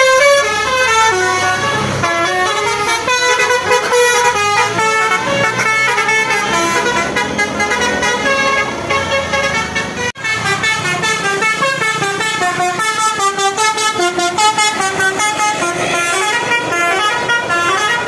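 Multi-tone 'basuri' telolet bus air horn playing a tune, stepping quickly from note to note. The tune breaks off abruptly about ten seconds in, and another horn tune starts straight after.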